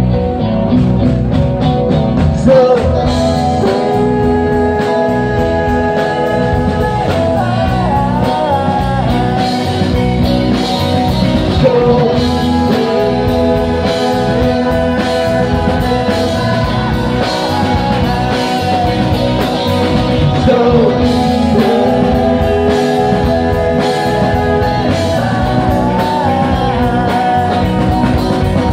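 Live pop-rock band playing with a lead singer: sung vocals over guitar and a steady drum beat.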